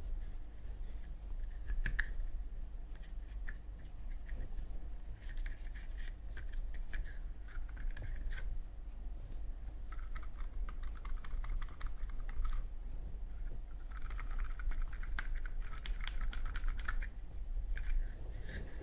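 Cotton swab scrubbing the metal insert of a Zippo lighter around the flint wheel and cam spring: spurts of scratchy rubbing and many small clicks of metal being handled, over a steady low hum.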